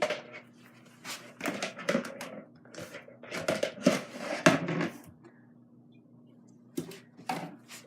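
Slime-making supplies being handled and put away on a tabletop: a busy run of knocks, clicks and rustles, then a quieter stretch, then a few more knocks near the end.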